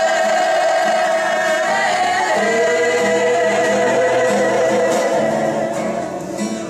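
Kapa haka group singing together in Māori, many voices holding long notes in unison. The melody steps down in pitch about two seconds in, and the singing eases off a little near the end.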